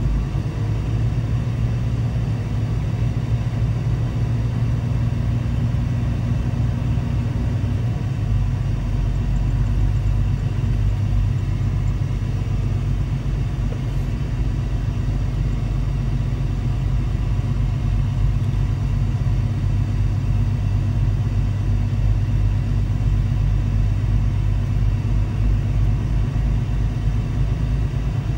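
Semi truck's diesel engine running steadily as the truck drives slowly, heard from inside the cab as an even low rumble.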